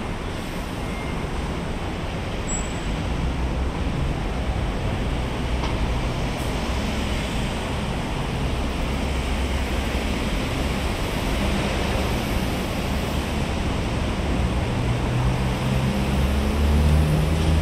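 Steady road traffic on a multi-lane city highway: the tyre and engine noise of passing cars and buses, with a deeper engine rumble growing louder near the end.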